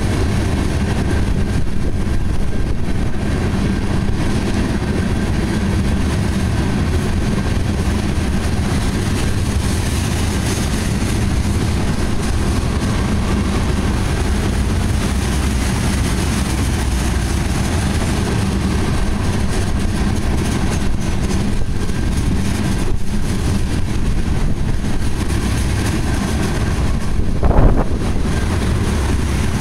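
Tank cars of a freight oil train rolling past: a steady rumble of steel wheels on the rails, with a brief louder knock near the end.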